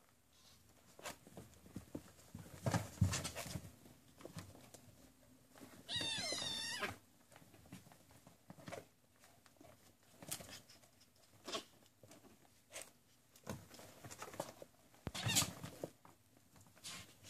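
Kittens play-wrestling: scattered rustles and soft thumps as they scramble over blankets and a sisal scratcher. About six seconds in, one kitten gives a wavering mew that lasts about a second.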